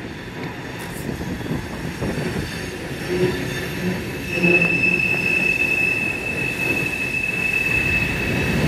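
CSX freight train cars rolling across a steel girder bridge with a steady low rumble. About four and a half seconds in, a steady high-pitched wheel squeal starts and holds.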